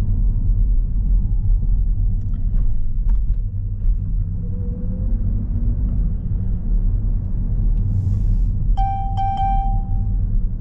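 Steady low rumble of a car's engine and tyres heard inside the cabin while driving. About nine seconds in comes a short burst of electronic beeping.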